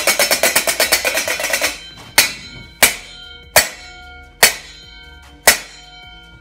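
A stainless steel pot lid being banged, first a rapid clatter of hits for about two seconds, then single strikes roughly once a second, each one ringing on after the hit.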